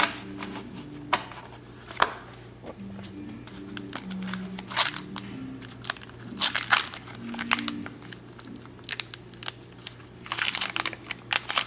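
Wax-paper wrapper of a 1990 Donruss baseball card pack crinkling and tearing as it is peeled open, in crackly bursts about five seconds in, around six to seven seconds in, and loudest near the end. Before that, a few light clicks of cards being handled.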